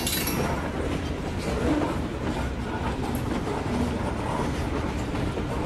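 A long string of N scale model ore cars rolling along the track: a steady rattling rumble of small wheels on rail, with faint clicks.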